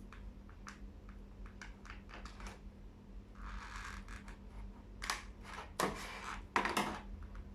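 Toy packaging being handled as a doll is worked out of its box: scattered light clicks and plastic and cardboard rustling, louder rustling and scraping near the end.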